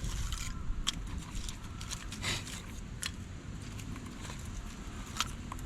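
Scattered light clicks and small knocks of gear or kindling being handled, over a steady low rumble of wind on the microphone.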